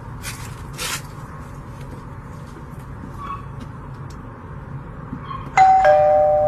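Ring video doorbell pressed, its chime sounding a two-note ding-dong: a higher note followed a moment later by a lower one, both ringing on and slowly fading. The chime comes about five and a half seconds in and is the loudest sound.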